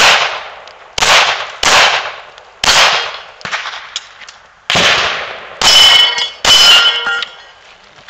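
Seven handgun shots in quick, uneven succession, about a second apart with a longer gap in the middle. Several are followed by the ringing clang of a hit steel target.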